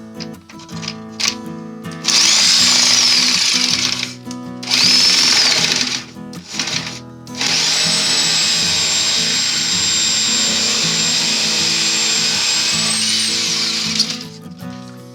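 Electric motor of a homemade jigsaw running in three bursts with a high whine. The first burst rises quickly and then winds down. The last is a steady run of about six seconds that rises briefly just before it stops. Background guitar music plays underneath.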